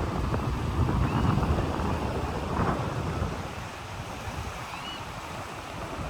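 Pacific surf washing against a rocky beach, with wind buffeting the microphone; the wash is strongest for the first three seconds or so, then eases to a softer hiss.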